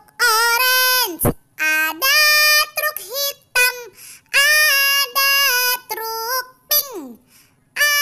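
A high, child-like voice singing a children's song without accompaniment, in short phrases of held notes. One phrase slides steeply down in pitch near the end.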